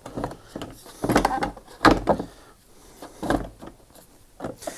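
Irregular plastic knocks and clunks, about five of them, with handling and scraping between, as the electric motor of a Flymo UltraGlide lawnmower is worked back into its plastic housing.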